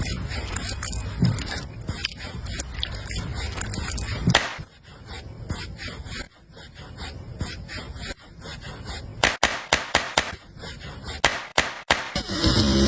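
Handwork on a miniature model: scraping and rubbing for the first few seconds, then scattered taps, and from about nine seconds in a series of sharp clicks and knocks.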